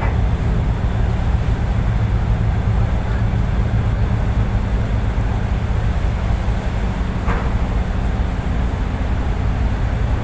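Tugboat's diesel engine running steadily under load as the tug pushes against a ship's hull, a deep, even drone heard close by on the tug's own deck.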